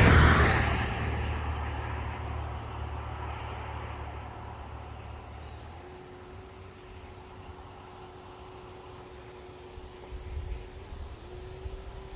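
Insects chirping steadily in a high, unbroken chorus. In the first couple of seconds the noise of a passing vehicle fades away, and a low hum lingers until about halfway through.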